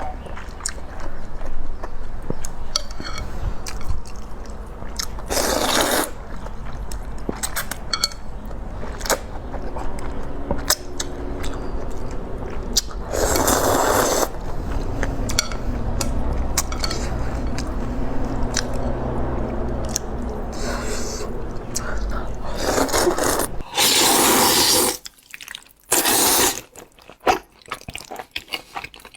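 Close-up eating sounds: spicy instant noodles slurped in a few long, loud slurps, with chewing and small wet mouth clicks between them.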